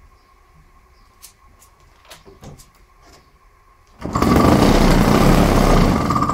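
Small two-stroke engine with a propeller, pull-started about four seconds in: it catches at once and runs loud and steady at high speed, then begins to die away near the end. A few light handling clicks come before it.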